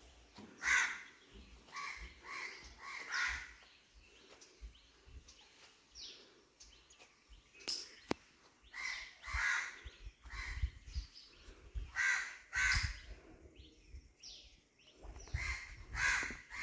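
Crows cawing repeatedly: short, harsh calls in bouts of two to four, with quiet gaps between.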